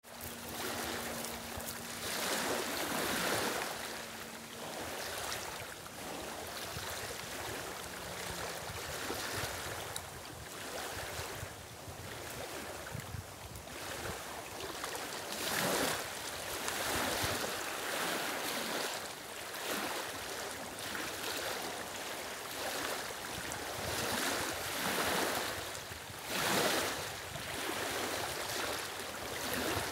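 Small lake waves lapping and washing over a stony shore among reeds, swelling and easing every second or two.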